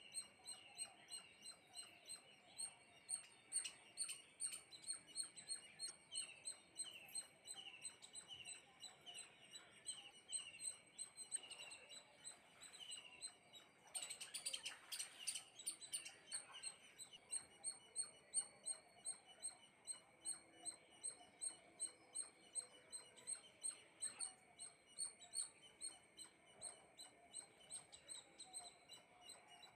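Small birds chirping in a fast, even series of short, high chirps, about two a second, with a brief rustle partway through.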